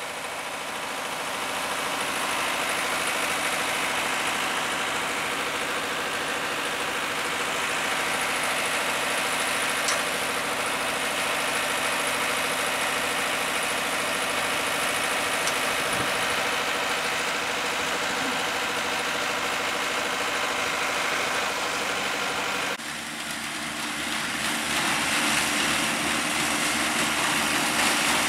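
Vintage tractor engine running steadily. After a cut near the end, a deeper engine note grows louder.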